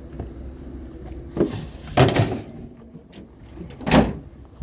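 Three loud bangs and clunks, the last two about two seconds apart, over the low steady hum of an idling vehicle.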